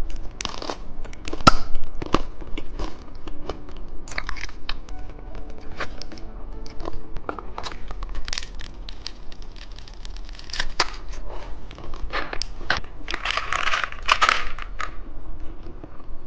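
Plastic candy packaging being handled, crinkled and torn open, with many short sharp crackles and clicks. A dense stretch of crinkling comes about thirteen seconds in.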